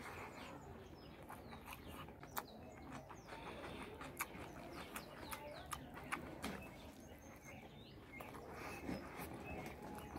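Mouth and hand sounds of eating rice salad by hand: many short wet clicks and smacks from chewing and lips. Bird calls, clucks and chirps sound in the background.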